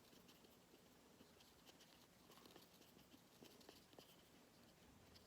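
Near silence: quiet room tone with a few faint, scattered small clicks and scratches.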